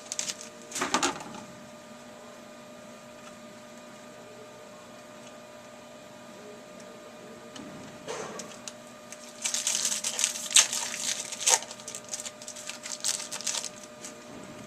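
Foil trading-card pack wrappers being torn open and crinkled, with cards handled and shuffled, in short crackly bursts about a second in and again from about eight to thirteen seconds. A faint steady hum sits underneath.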